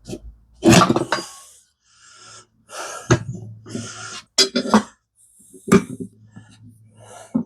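A soaped mini bike street tire being worked onto its rim on a manual tire changer: irregular scrapes and squeaks of rubber on metal with a few sharp knocks.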